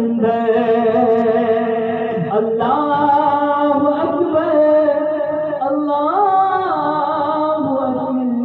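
A naat, an Urdu devotional song, sung solo with long held notes; about six seconds in the voice slides up and back down.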